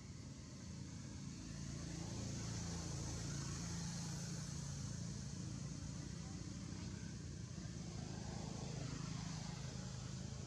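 A steady low engine hum that grows louder about a second in and then holds, with a hiss over it.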